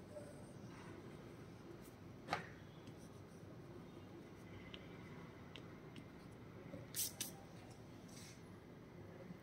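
Faint pencil-on-paper sounds from sketching and erasing with a mechanical pencil and eraser: a sharp tick about two seconds in, a few light ticks, and a quick double knock near the end.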